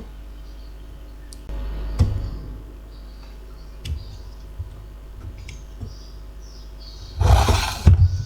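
Handling noise at the workbench while a failed electrolytic capacitor is removed from a TV power board: a few sharp clicks and taps over a low steady hum, then a louder burst of rustling noise and knocks near the end.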